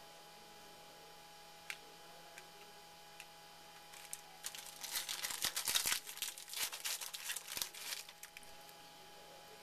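Wrapper of a 2011 Topps Finest Football card pack crinkling and tearing as it is opened by hand, in a run of crackles from about four seconds in until past eight seconds. There is a single light click near two seconds.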